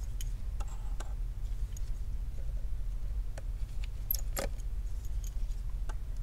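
Scattered small metallic clicks and taps from a screwdriver and tiny tri-point screws being worked out of a phone's internal metal bracket. The loudest click comes about four seconds in. A steady low hum runs underneath.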